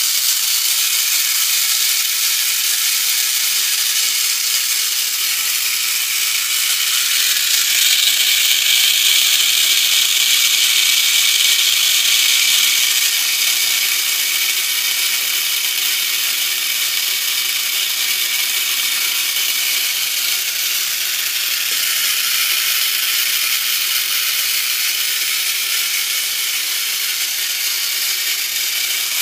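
Cam-driven automaton writing machine turned by hand as its marker draws on paper: a steady whirring, grinding noise from its plastic gears and 3D-printed cams, louder for several seconds about a quarter of the way in.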